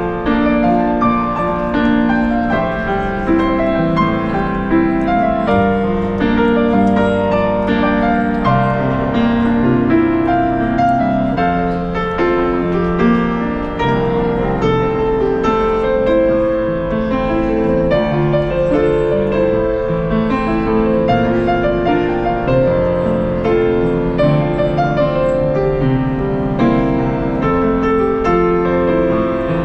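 Grand piano played without a break, a melody over chords.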